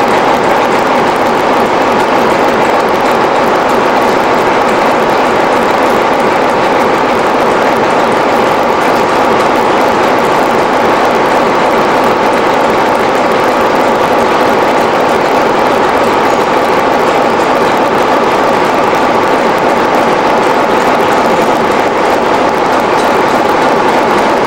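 Class 47 diesel locomotive's Sulzer twelve-cylinder engine idling steadily while the locomotive stands still.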